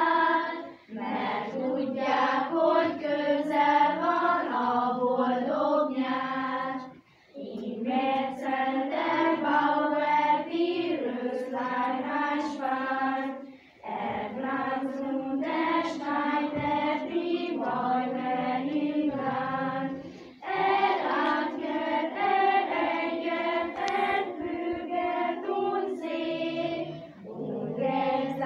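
Children's school choir singing a song, with short breaths between phrases about every six and a half seconds.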